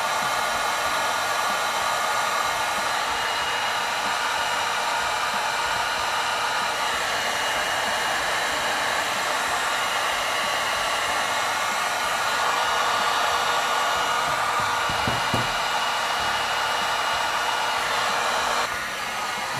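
Heat gun running steadily, blowing hot air to dry freshly cleaned brass clock wheels. It gets a little quieter near the end.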